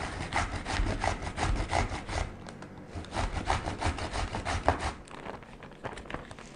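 Zucchini being grated by hand on a grater: a run of rasping strokes, about three a second, with a short break about two seconds in, the strokes stopping about five seconds in.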